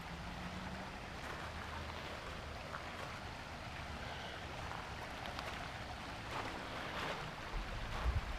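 Outdoor riverbank ambience: a steady hiss with a faint low hum over the first second, and low rumbling thumps on the microphone near the end.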